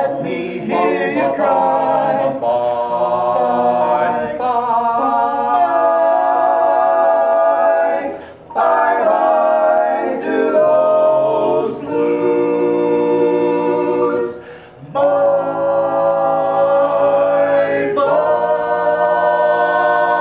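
A four-man a cappella quartet singing in close harmony, holding long sustained chords with two brief breaks between phrases, and building to a final held chord near the end of the song.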